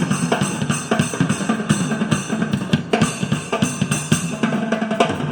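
Drum-heavy music with a busy kit of bass drum and snare, played back through a small DIY 3-inch full-range speaker driver, with little deep bass.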